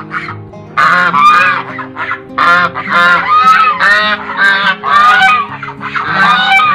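A bird calling loudly and repeatedly, in a rapid run of short calls about two a second, over background music with steady low notes.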